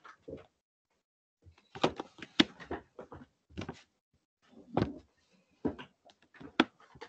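Scattered short clicks and light knocks, about a dozen at irregular intervals, with dead silence between them.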